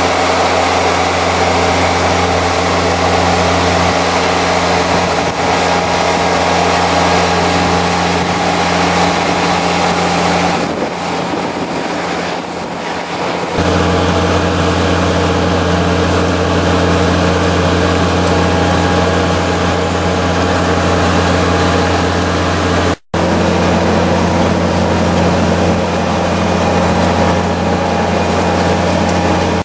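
Tractor engine running at a steady speed, a continuous droning hum. The deep part of the hum drops away for a few seconds about eleven seconds in, then returns, and the sound cuts out for an instant about three-quarters of the way through.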